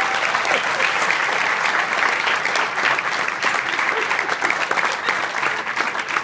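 A room full of people applauding, with one pair of hands clapping close by.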